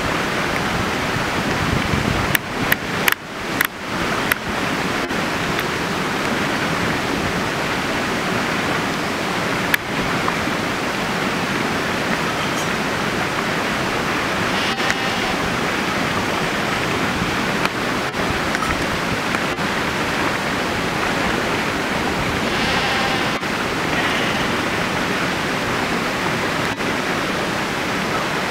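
Steady rushing noise throughout, with a few sharp knocks about two to four seconds in. Sheep bleat faintly twice, once about halfway through and once about three-quarters through.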